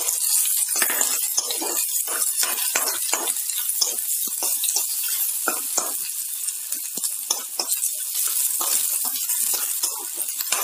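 Chopped onion, ginger and garlic sizzling in hot oil in a kadhai, with a steel spoon stirring them and scraping the pan about twice a second.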